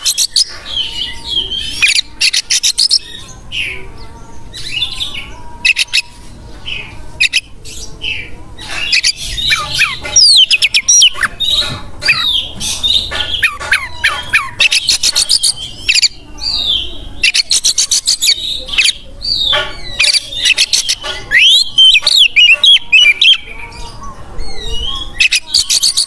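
Oriental magpie-robin (kacer) singing loudly and without pause: varied whistled phrases that slide up and down, broken by bursts of rapid, harsh rattling notes.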